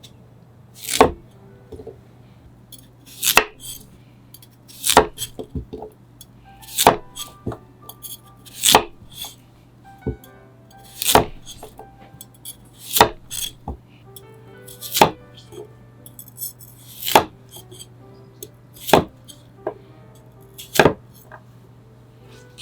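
A kitchen knife cutting a carrot on a cutting board in a rolling cut: a sharp chop about every two seconds, about eleven in all, with lighter knocks between as the carrot is turned for the next diagonal cut.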